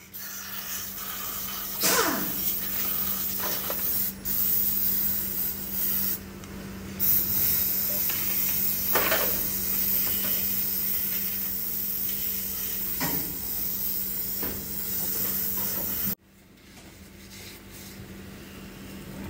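Aerosol cleaner spraying onto an electronic throttle body with a steady hiss, broken briefly near four and six seconds in. A steady low hum runs underneath. The spraying cuts off about sixteen seconds in.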